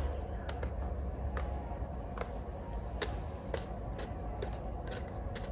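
Oil filter wrench clicking on a new spin-on oil filter as it is tightened by hand: short sharp clicks, about one a second, over a low steady hum.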